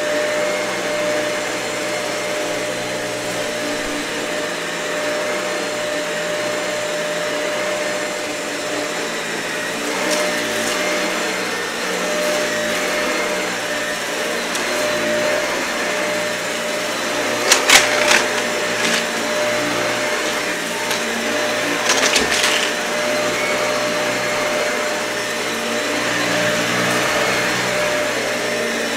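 Dyson vacuum cleaner running steadily over a matted, dirty carpet, its motor holding a steady whine over the rush of air. Twice, about two-thirds of the way through, brief clusters of sharp clicks cut in as debris is sucked up.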